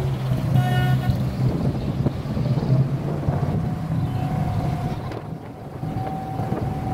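Wooden abra water taxi's diesel engine running steadily under way, a low drone with wind on the microphone.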